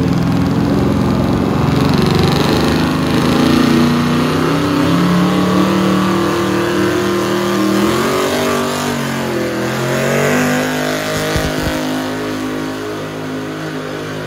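Pickup truck engine running at full throttle under heavy load while pulling a weight-transfer sled. The engine pitch wavers, sags about two thirds of the way through and then climbs again.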